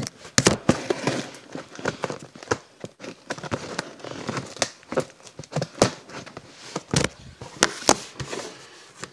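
Knife slitting the packing tape on a cardboard shipping box: irregular crackles, rips and rustles of tape and cardboard, dying away near the end.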